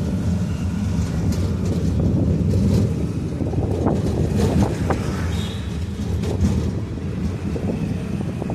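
Steady low rumble of a moving vehicle, with wind noise on the microphone and a few light knocks.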